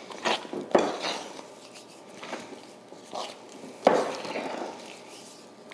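Wooden spoon stirring thick muffin batter with frozen blueberries in a glass mixing bowl: soft scraping and squishing with a few sharp knocks of the spoon against the bowl, one early, one just under a second in and one about four seconds in.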